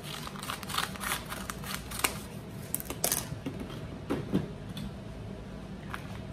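Scissors cutting open the top of a heavy paper bag, with crisp paper rustling and crinkling. A few sharp clicks and knocks of things set down on the stone countertop follow.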